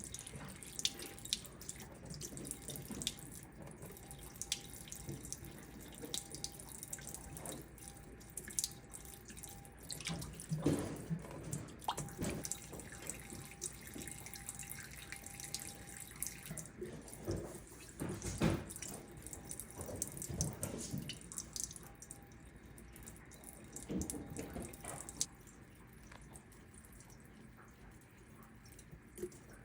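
Water running from a tap into a sink, the stream splashing and dripping irregularly; it gets quieter near the end.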